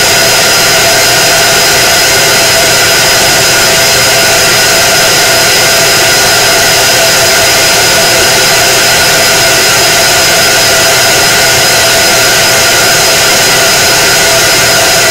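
K40 CO2 laser cutter running while it engraves a tumbler on a rotary attachment: a loud, steady, fan-like noise with a constant high whine.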